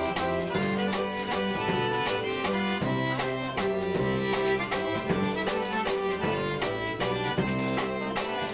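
Live Cajun dance band playing: accordion, upright piano, upright bass and drum kit, with a steady beat.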